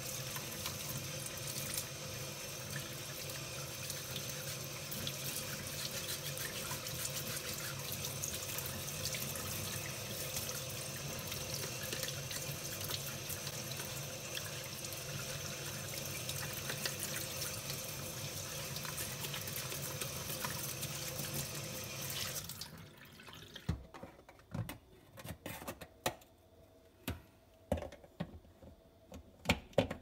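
Kitchen tap running in a steady stream onto a dishwasher filter held in a stainless-steel sink. The water cuts off about three-quarters of the way through, leaving a few scattered knocks and clicks.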